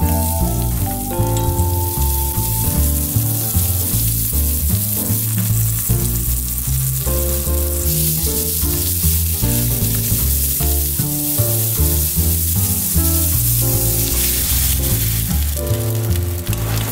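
Chopped garlic and shallots sizzling and frying in hot cooking oil in a pan. About halfway, onion pieces and a little water go in and the sizzle dies down, then it picks up again near the end. Background music with stepping melodic notes plays underneath.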